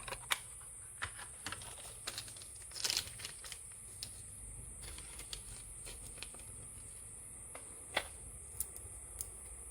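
Sparse light clicks and taps of a 2.5-inch SSD and a laptop drive bracket being handled and fitted together, with a short cluster of taps about three seconds in and a sharper single click near eight seconds.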